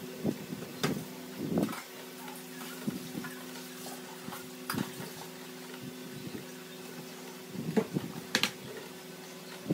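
Bread dough being kneaded by hand on a tabletop: irregular soft thumps and knocks as it is turned, pushed and pressed flat with the palms, a few louder ones near the end, over a steady low hum.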